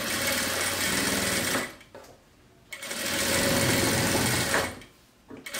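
Sewing machine stitching a straight seam along a zipper edge, running in two spells: it stops about a second and a half in, starts again about a second later, and stops again near the end.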